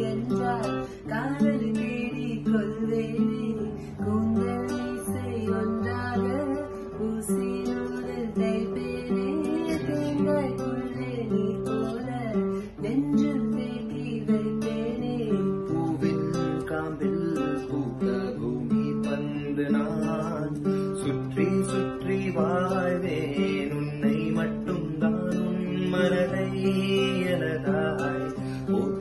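Nylon-string classical guitar strummed through a song, with voices singing along: a woman's voice, and a man's voice toward the end.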